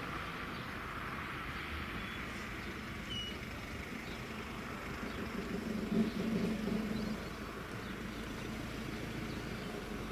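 Distant two-car Class 156 diesel multiple unit approaching along the line, its engine a low steady hum that swells about six seconds in.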